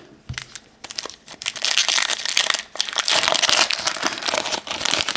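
A trading card pack wrapper crinkling as it is torn open. A few scattered clicks come first, then a dense crackle from about a second and a half in.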